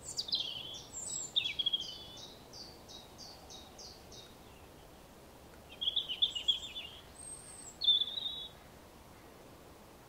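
European robin singing: two high-pitched phrases of quick notes. The first trails off in a run of evenly spaced, fading notes, and a second phrase follows after a pause of about a second and a half.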